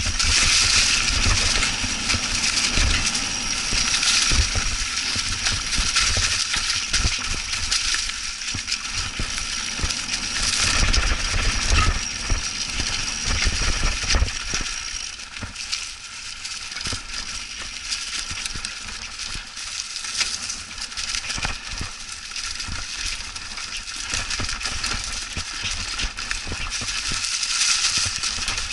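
Mountain bike riding over a trail covered in dry leaves: the tires crunch through the leaves while the bike rattles and clatters over bumps, with wind buffeting the microphone.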